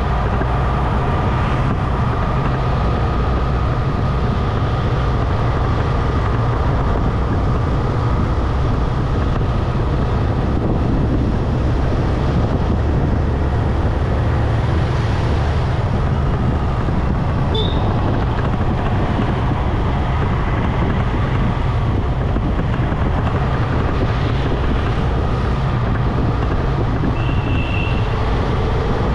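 Motorcycle riding at a steady speed: an even engine rumble with wind and tyre noise. Two short high-pitched beeps, one a little past the middle and one near the end.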